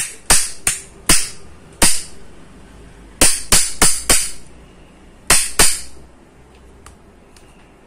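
About ten sharp metallic knocks in three quick groups, each with a brief ring, as the 775 DC motor's rotor and end cap are knocked into the tight magnet housing.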